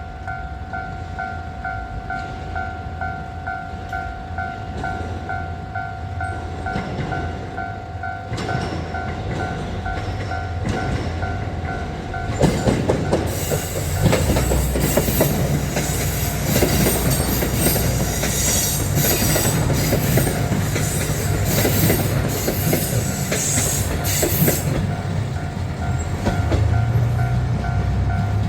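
A Japanese level-crossing alarm rings with a steady, rapidly pulsing two-tone ding. About twelve seconds in, the Nanohana rapid, a diesel train, passes loudly over the crossing for roughly twelve seconds, its wheels clattering over the rail joints. The alarm is heard again near the end.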